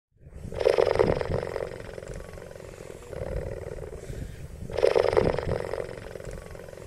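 An animal's rough, growling roar, about a second long, heard twice, about four seconds apart, with a quieter growl between.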